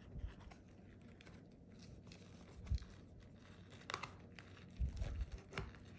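A spatula scraping down between a cracked plastic nursery pot and the peat and moss packed inside: quiet crinkling and scraping rustles, with a few sharp clicks and soft knocks from the plastic wall flexing.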